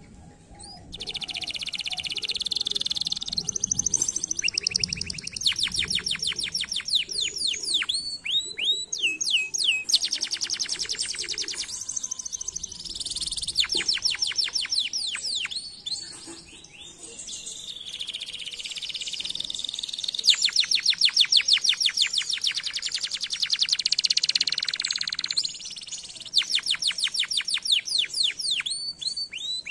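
Domestic canary singing a long, continuous song of fast trills of repeated sweeping notes mixed with buzzy rolls. It starts about a second in and eases briefly around the middle before going on.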